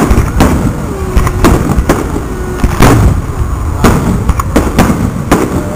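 Aerial firework shells bursting in quick succession, about ten sharp bangs over a few seconds, over a constant low rumble.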